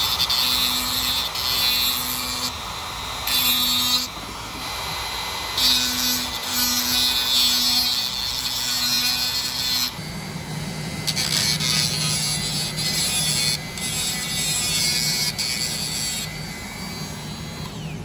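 Handheld rotary tool with a grinding stone grinding down a small metal C-clip. For the first ten seconds it goes in short passes, with a steady whine and gritty hiss starting and stopping. After about ten seconds it turns lower and steadier.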